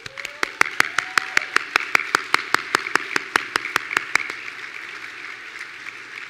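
One person clapping close to a microphone, about five sharp claps a second for some four seconds, over the steady applause of a large seated audience that carries on after the close claps stop.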